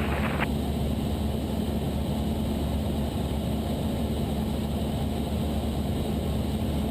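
Cessna 172's single piston engine and propeller droning steadily in cruise, heard from inside the cabin.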